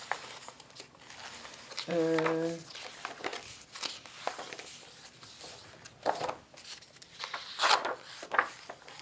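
Pages of a large book being turned by hand: paper rustling and flapping in short sweeps, the loudest about six and eight seconds in. A brief held voice sound, like an 'mm', about two seconds in.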